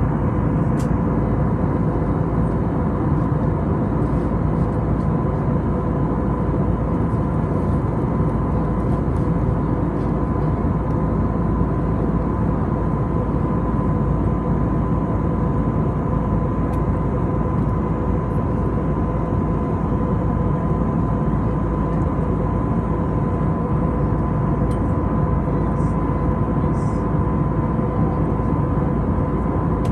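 Steady cabin noise of a Frontier Airbus A320-family jet in flight: engine drone and rushing air, with a steady high hum running through it.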